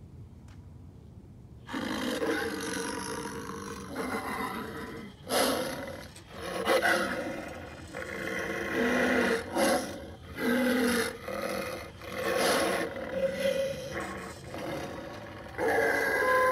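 Animatronic werewolf Halloween prop playing recorded growls and roars through its speaker, in a string of loud bursts with short gaps, starting a couple of seconds in. Near the end a long, pitched, howl-like wail begins.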